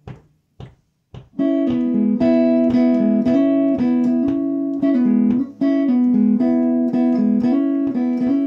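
Eastman T60 semi-hollow electric guitar playing a chordal intro, picked in an even rhythm. A few short clicks come before the first chord, which rings out about a second and a half in.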